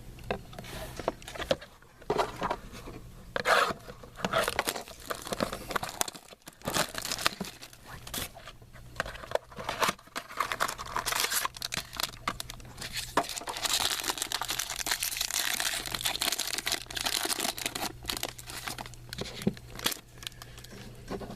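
Trading card pack wrappers being torn open and crinkled, in irregular crackling rustles that grow denser about two-thirds of the way through, over a steady low hum.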